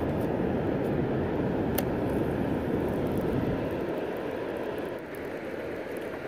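Steady rushing of water pouring through a dam's three open gates, a constant rumble of outflow. A faint click about two seconds in.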